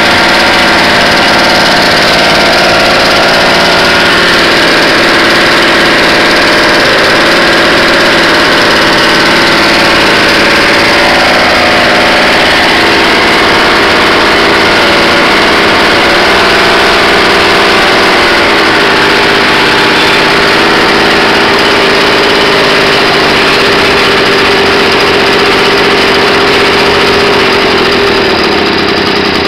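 Restored 1955 JAP Model 0 small single-cylinder stationary engine running steadily, loud and close. It eases off slightly in level near the end.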